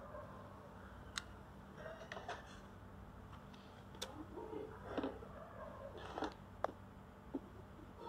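Faint, scattered small clicks and light handling taps from plastic RC gear: a servo lead being seated in the receiver and the plastic radio transmitter being picked up and handled. A faint low steady hum runs underneath.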